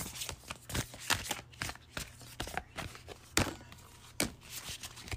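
Oracle cards being shuffled and handled by hand: a run of irregular soft slaps and flicks, over a steady low hum.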